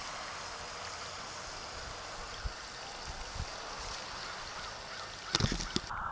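Steady rushing of water, then a quick run of sharp knocks and bumps near the end.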